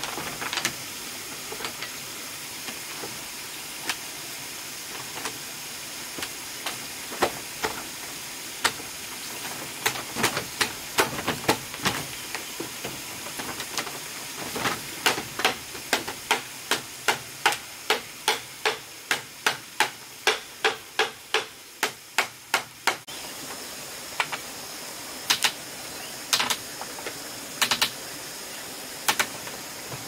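Machete chopping into a bamboo pole: sharp knocks, scattered at first, then a steady run of about two strokes a second through the middle, ending in a few spaced knocks. A steady high hiss lies underneath.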